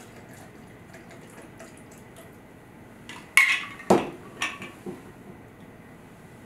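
A shaken cocktail being strained from a metal cocktail shaker into a stemmed glass, a faint trickle of liquid. About three seconds in come a few sharp clinks and knocks of glassware and metal as the shaker is set down on the table and the glasses are moved, the loudest two in quick succession.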